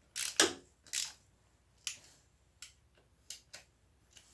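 Sharp metal clicks and knocks from a hand tool snugging the primary cover bolts on an Ironhead Sportster engine case, about eight at uneven spacing, the loudest pair near the start.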